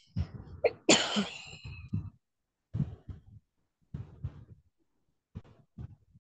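Short, broken sounds from a person's voice and breath, with near silence between them. The loudest is a harsh burst about a second in.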